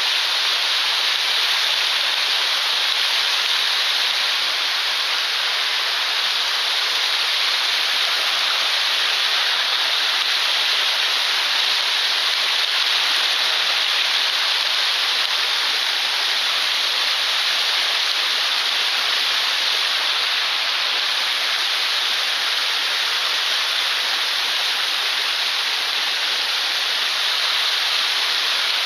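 Waterfall pouring into a mountain-stream pool: a steady, unbroken rush of water.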